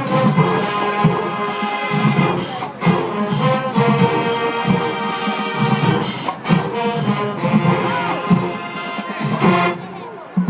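HBCU marching band playing: brass section and drumline together in a driving rhythm. Near the end the band drops off briefly, then comes back in loud.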